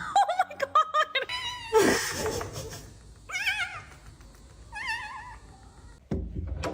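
A cat calling: a quick run of short chirps and clicks, then a loud noisy burst, then two wavering, warbling meows about a second and a half apart. A low rumble starts near the end.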